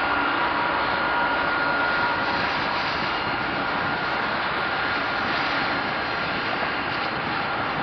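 Turbofan engines of a three-engined wide-body jet at taxi power: a steady rushing hiss with a high whine held on one pitch.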